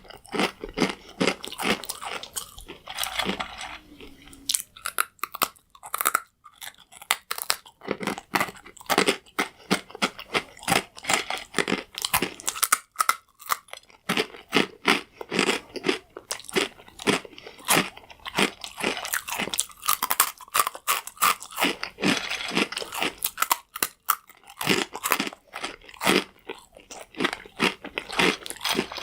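Crunchy croutons being bitten and chewed close to the microphone: a dense run of loud, irregular crunches with a few brief pauses.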